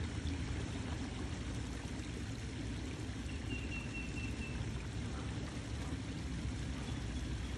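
Steady rush of moving water, with a faint high whistle briefly about halfway through.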